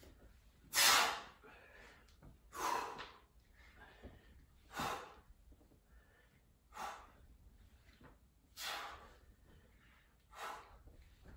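Sharp, forceful breaths, about one every two seconds, six in all, in time with push-up repetitions; the first, about a second in, is the loudest.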